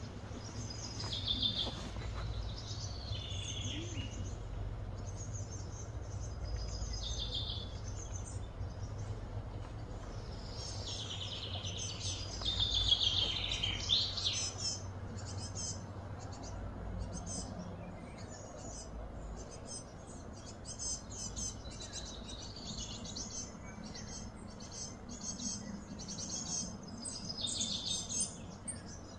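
Birds chirping and calling over a steady low background hum, the calls coming thickest around the middle.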